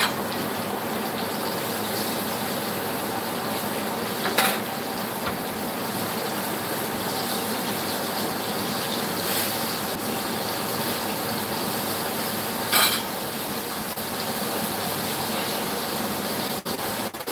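Flour-coated chicken back pieces deep-frying in a pot of hot oil: a steady sizzle. Two brief sharp clicks or knocks stand out, once a few seconds in and again later.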